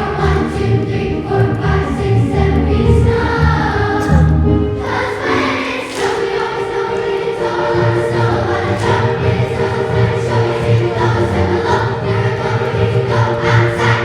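Student choir singing a song in many voices, with sustained low accompaniment notes beneath.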